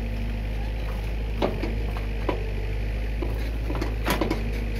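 Komatsu PC45 mini excavator's diesel engine running steadily under the hydraulics as the bucket digs wet soil, with a few short knocks and scrapes from the bucket, the loudest cluster near the end.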